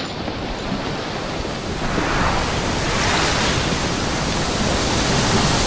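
Ocean surf, a rushing wash of waves that swells louder about two seconds in and stays up.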